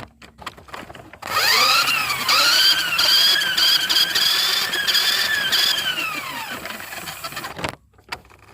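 Electric motor of a 4x4 RC Polaris toy car whining under throttle. The pitch climbs quickly about a second in, dips briefly, holds steady for several seconds, then falls away and stops near the end.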